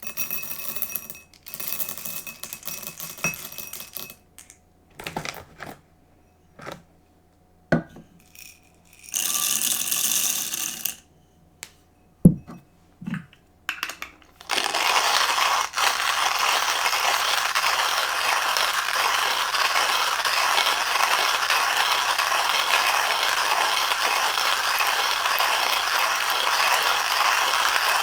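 Rattling, clinks and light knocks of handled kitchen things, with one sharp knock a little past twelve seconds. From about fourteen seconds a loud, even rushing hiss sets in and holds steady.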